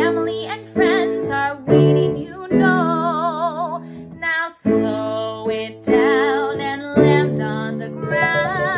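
A woman singing a children's song with a strong vibrato over strummed acoustic guitar chords, each phrase held for about a second before the next strum.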